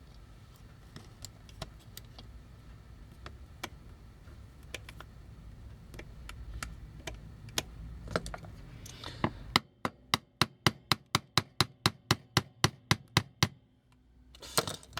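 Small metal tool clicking and scraping against the toy, then, about ten seconds in, some four seconds of quick, even taps, about four to five a second: a small hammer tapping a pin punch to drive out a stuck pin in the die-cast toy.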